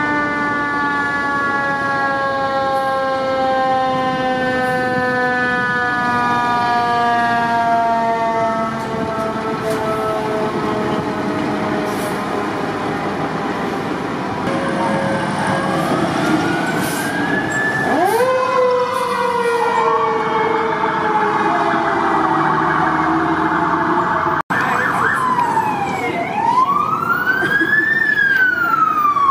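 Fire truck sirens. A mechanical siren winds slowly down in pitch through the first half, is wound up sharply again about two-thirds of the way in, and falls away once more. After a cut near the end, an electronic wail siren sweeps rapidly up and down.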